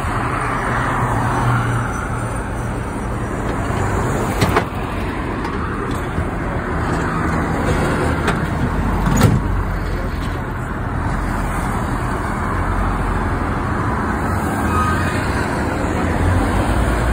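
Steady road noise from a moving vehicle on a highway: a continuous rush of tyres and engine with passing traffic, broken by two brief knocks, the sharper one about nine seconds in.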